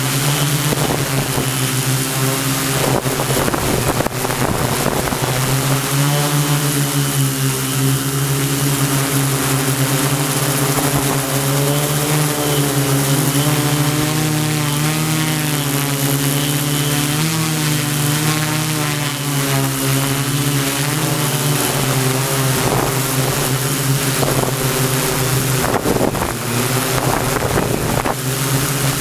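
Large multirotor drone's motors and propellers running in flight: a steady buzzing hum whose pitch shifts slightly now and then as the rotors change speed. Wind buffets the microphone in gusts, about three seconds in and again near the end.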